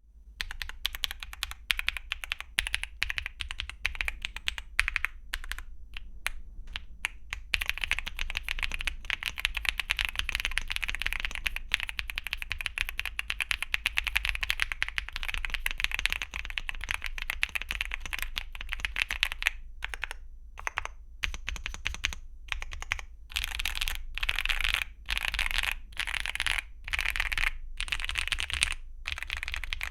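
Typing on a MonsGeek M1 V5 mechanical keyboard with Gateron Baby Kangaroo 2.0 tactile switches and Cherry profile double-shot PBT keycaps: fast continuous keystrokes, which give way about two-thirds of the way in to short separate bursts of rapid keypresses.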